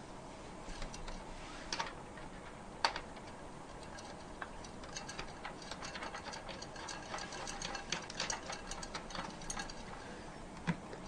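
Thumb screws of a Kraken X62 CPU cooler being turned by hand onto the mounting standoffs: a run of faint small clicks and ticks, one sharper click about three seconds in, thickening into rapid ratchet-like ticking in the second half.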